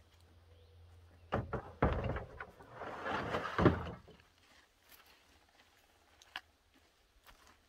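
A run of knocks and thuds about a second and a half in, then about two seconds of rustling clatter ending in a sharp knock, then quiet with a few faint clicks.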